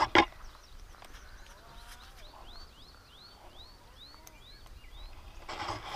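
A bird singing a run of about nine repeated high notes, each rising then falling, about three a second. A sharp knock right at the start is the loudest sound, and there is a rustle near the end.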